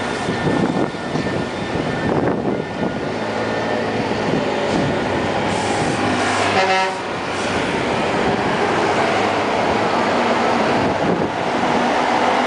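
Rubber-tyred elevated metro train of Taipei's Wenhu line running along the concrete guideway, mixed with steady road traffic and buses. A short horn sounds about seven seconds in, and the noise swells again toward the end.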